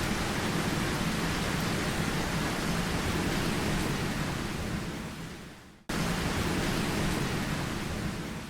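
Steady heavy rain, an even hiss. It fades out about five seconds in, cuts back in abruptly at full strength, and fades out again at the end.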